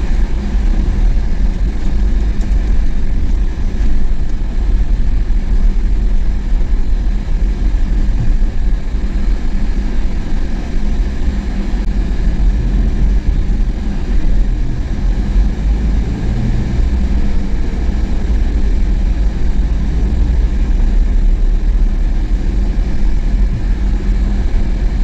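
Steady low rumble of a vehicle's engine and road noise heard from inside the cabin while driving.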